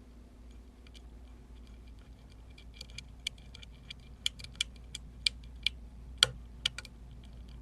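Lock pick clicking against the pins and keyway of an Emhart lock during picking: a run of sharp, irregular metallic clicks through the middle, the loudest about six seconds in.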